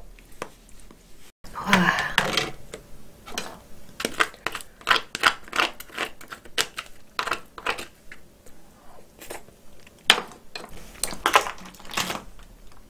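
Close-miked cracking and snapping of cooked snow crab shells and legs being broken apart by hand, mixed with wet eating sounds. The cracks come irregularly, several a second, and the sharpest are near the end.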